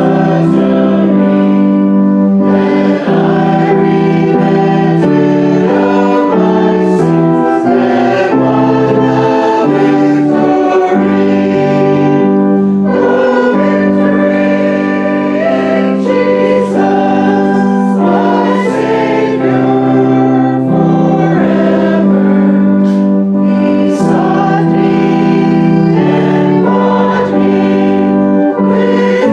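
Church congregation singing a hymn together in slow, sustained notes.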